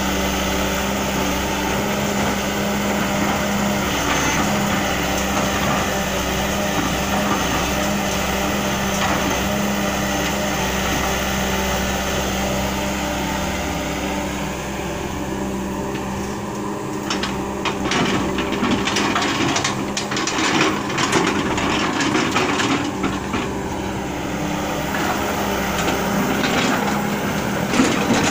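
Sumitomo crawler excavator's diesel engine running steadily under work as it handles logs with its grapple. From about halfway through, a series of sharp knocks and clunks sounds over the engine.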